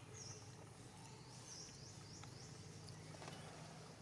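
Faint outdoor ambience with a low steady hum and small birds chirping high: one chirp near the start, then a quick run of four about a second and a half in. A couple of faint clicks are also heard.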